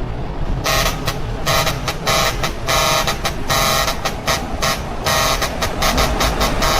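A heavy truck's horn blowing several tones at once in quick, uneven bursts, over the truck's running engine. The horn starts well under a second in.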